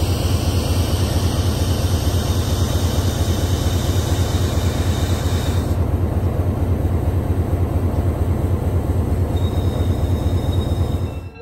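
The EMD 567 diesel prime mover of an SW switcher locomotive running as it passes close by, a loud, steady, fast low throb. A high hiss rides on top and stops about six seconds in.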